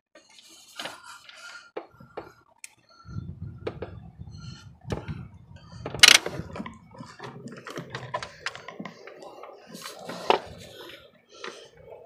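Clinks and knocks of hands and tools handling metal parts in a truck's engine bay, with one sharp, loud knock about six seconds in and a low rumble in the middle stretch.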